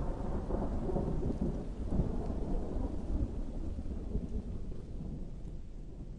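A low, dense rumble with a crackling texture, like rolling thunder and rain. It is loudest about two seconds in and fades away near the end.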